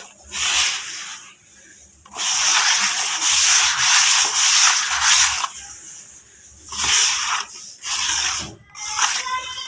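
Hands crumbling and rubbing dry, powdery red dirt in a plastic tub: several bursts of dry, gritty rustling, the longest lasting about three seconds from about two seconds in. Near the end, dry dirt poured from the hand patters down onto the pile.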